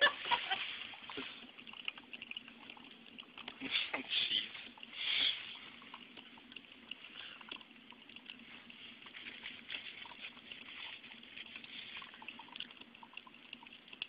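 Drip coffee maker brewing, gurgling and trickling over a steady hum, with a few louder noises about four and five seconds in.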